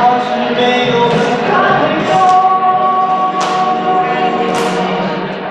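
A man singing a Mandarin pop ballad into a handheld microphone over backing music, holding long notes.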